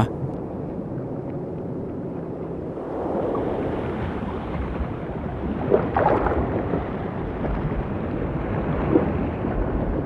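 Underwater ambience: a steady, low rushing wash of water that swells a little about three seconds in.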